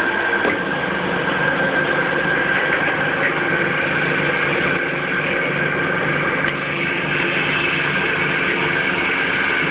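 A cheese stretcher running: a steady mechanical hum with a constant high whine over it.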